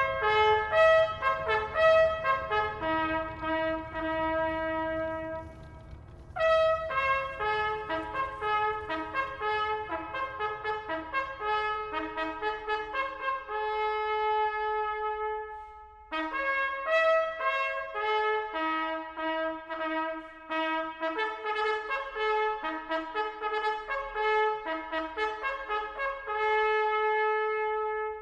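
Slow, solemn brass music led by a trumpet, playing held notes in phrases that pause briefly about six and sixteen seconds in. A faint low rumble sits underneath for roughly the first half.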